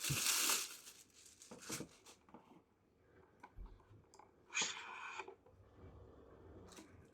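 Plastic packaging crinkling and rustling in short bursts while a small plastic filter and its parts are handled: a burst at the start, a brief one about two seconds in, and another about four and a half seconds in.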